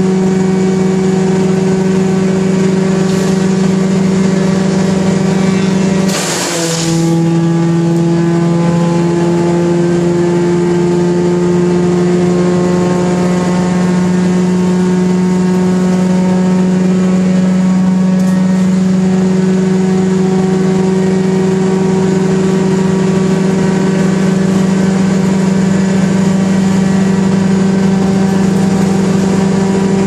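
1974 Wayne wood chipper running steadily at high speed. About six seconds in, a brief burst of noise as brush goes through the chipper; the engine's pitch drops under the load and slowly climbs back over the following seconds.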